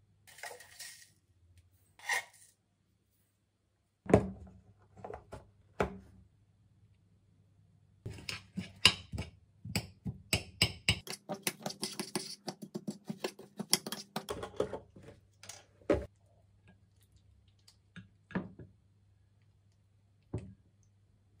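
Small metal spoon stirring a dry oatmeal, cocoa and seed mix in a glass container: scattered scrapes and taps, then about eight seconds of quick, dense scraping and clinking against the glass in the middle.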